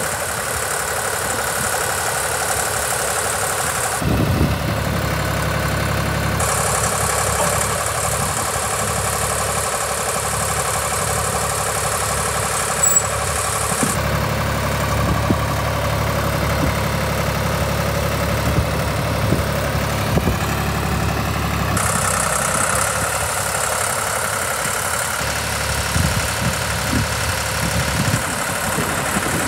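Ditch Witch riding trencher's engine running steadily while the A420 backhoe's boom and bucket are worked on the hydraulics. The engine note deepens and eases several times as hydraulic load comes on and off, with a few short knocks.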